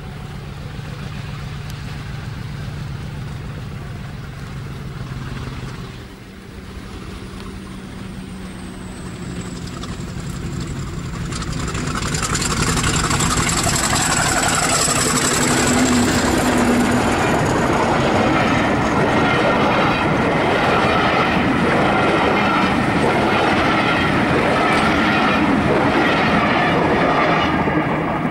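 British Rail Class 50 diesel-electric locomotive approaching and passing with a train of coaches. The engine grows louder and stays loud as it goes by. A thin high whine falls slowly in pitch as the locomotive passes, then the coaches run past with a rumble and wheel beats until near the end.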